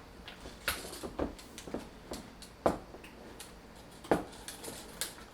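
A utensil stirring and breaking up a thick cream cheese and Miracle Whip mixture in a bowl, giving irregular knocks and clacks against the bowl about twice a second, with two sharper knocks near the middle.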